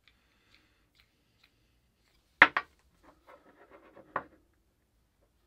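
An aluminium lever with a black knob handle knocked down onto a plywood workbench: one sharp knock about two and a half seconds in, faint handling clicks, then a second, smaller knock about four seconds in.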